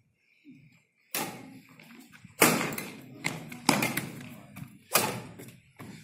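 Badminton rally: sharp racket strikes on the shuttlecock, a serve about a second in, then a hit roughly every second and a quarter, each echoing briefly in the sports hall.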